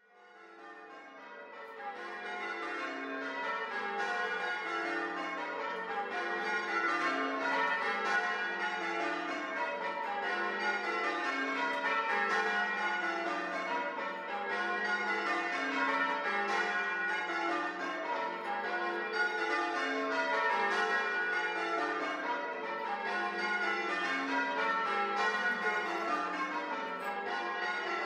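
A ring of church tower bells rung in changes, rows of strikes stepping down from treble to tenor and repeating in an even rhythm. The ringing fades up over the first couple of seconds.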